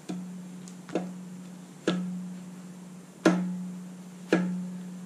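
Crankshaft of a Nissan VQ37VHR V6, in its aluminium block, being pushed and pulled lengthwise by hand so it knocks back and forth against its thrust washers: five sharp metal knocks, each followed by a ringing that fades slowly. The knocking is the crank's end play, which measures about 4.7 thousandths, within spec.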